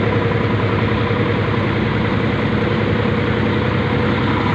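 A vehicle's engine running steadily without revving.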